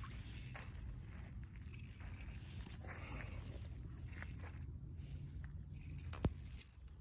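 Spinning reel working as a fish is played on light two-pound line: faint irregular mechanical clicks, with one sharper click about six seconds in, over a steady low rumble.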